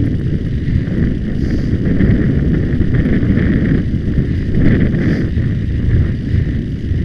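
Wind buffeting the microphone of a hat-mounted camera on a galloping horse's rider, a loud, steady low rumble.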